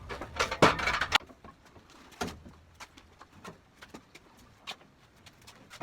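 Clatter of tools and wood being moved around while clearing a cluttered workshop: a loud rattling clatter about half a second in, lasting under a second, then scattered light knocks and clicks.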